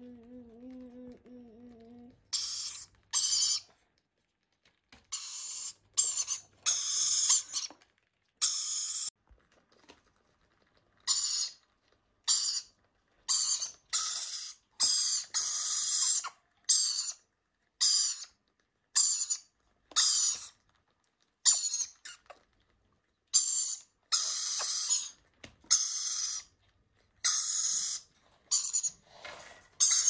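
Rainbow lorikeet chicks giving harsh, rasping food-begging calls while being spoon-fed formula. The short screeches start about two seconds in and repeat roughly once a second with brief silences between them.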